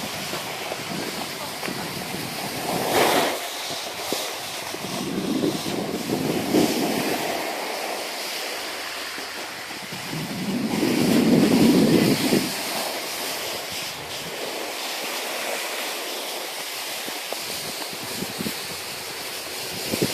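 Steady rushing scrape of sliding downhill over packed snow, with wind noise on the microphone. The scrape swells several times, loudest around eleven seconds in.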